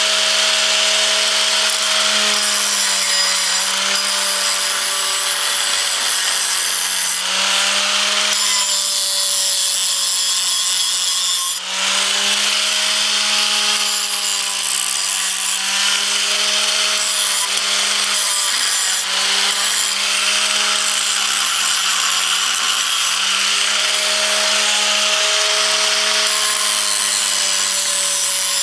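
Electric angle grinder running under load, grinding into galvanized steel harrow parts. The motor hum sags and recovers in pitch as the disc is pressed into the metal over a steady grinding hiss, with a brief let-up about twelve seconds in.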